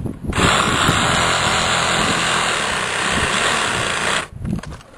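A motor-driven power tool running with a loud, steady rushing noise, which cuts in abruptly and stops abruptly about four seconds later.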